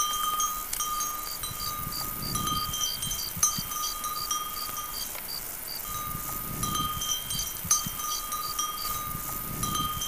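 Insects singing in summer grass: a high steady trill that breaks off and starts again, with a faster row of short chirps above it, about three a second.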